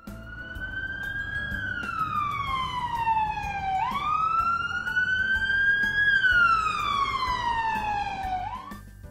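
Emergency vehicle siren wailing, its pitch rising and falling slowly twice over a low rumble, then cutting off near the end.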